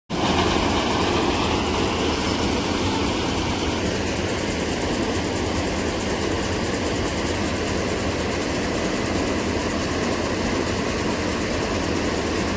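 Combine harvester running steadily at close range while its unloading auger pours threshed wheat grain into a trolley, engine drone mixed with the hiss of the falling grain.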